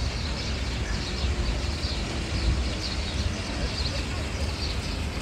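Busy outdoor plaza ambience: a crowd murmuring with a constant low rumble of wind on the microphone, and small birds chirping repeatedly above it.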